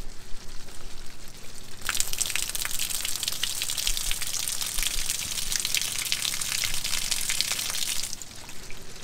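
Water gushing from a truck camper's opened cold-water low point drain and splattering onto the sewer hose and ground, flushing bleach solution out of the freshly sanitized lines. The splashing starts about two seconds in and cuts off about a second before the end.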